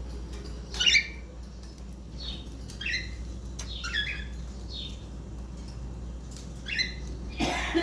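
Cockatiels giving about seven short squawking calls, the loudest about a second in and near the end, while faint clicks of them pecking and shredding a pine cone sound between the calls.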